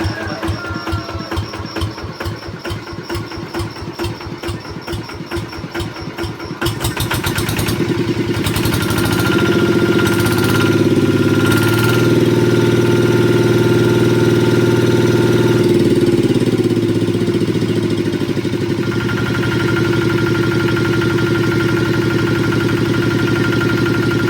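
Kubota diesel engine running, first idling with slow, even firing beats, then throttled up about seven seconds in to a faster, louder steady speed that it holds, eased back slightly later on. Sounds healthy and ready for use.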